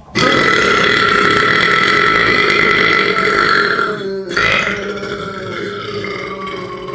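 A loud, drawn-out belch held steady for about four seconds, then after a short break a second belch that starts strongly and trails on more quietly.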